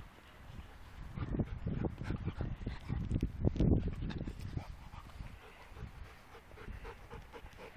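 Dogs playing together up close, a black-and-white mix, a malamute mix and a cocker spaniel, with soft whines and small dog noises. A few low thumps come between about one and four seconds in.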